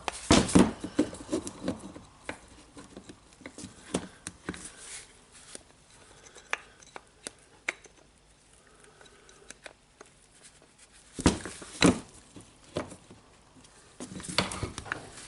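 Scattered clicks and knocks of parts being handled and fitted together as the armature and field are seated in the housing of a Makita DHR202 rotary hammer, with a few louder knocks about eleven and twelve seconds in and a quick run of clicks near the end.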